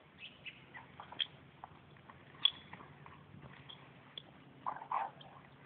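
Labrador mouthing and chewing a freshly caught gopher in the grass: scattered short crunches and clicks, the loudest about two and a half seconds in and another cluster near the end.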